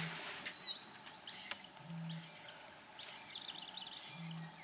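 Marsh harrier calling: a thin, high whistled note given about once a second, each one held level and then dropping away at the end.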